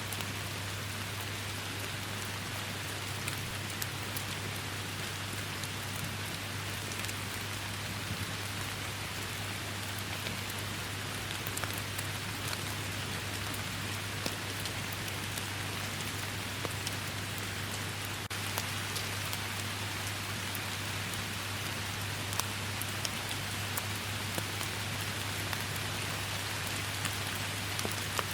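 Steady heavy rain falling, with scattered sharp drop ticks and a low steady hum underneath.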